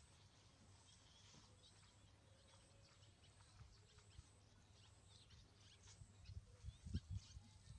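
Mostly near silence with faint scattered clicks, then a few soft low thumps near the end.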